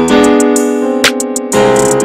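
Background music: keyboard chords, with new chords struck about every half-second to a second.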